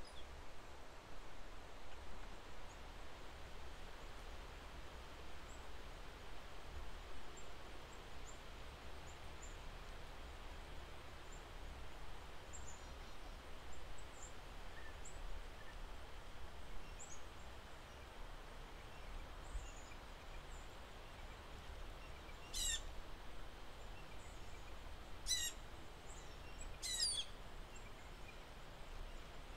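Steady outdoor wind noise with small birds chirping: faint, scattered high chirps, then three louder, quick high calls near the end.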